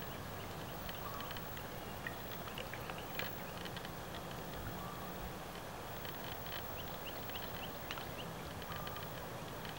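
Quiet salt-marsh ambience: a steady low hum under faint, scattered bird chirps and small clicks, with a short run of high chirps about seven seconds in.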